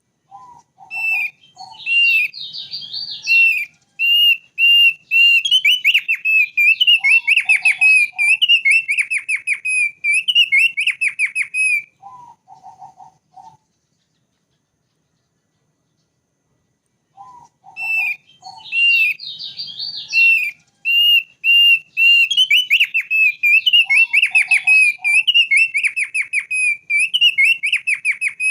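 Thick-billed white-eye singing: a long, fast run of high whistled and chattering notes lasting about 11 seconds, broken by short lower trills. After a few seconds of silence the same song phrase starts again.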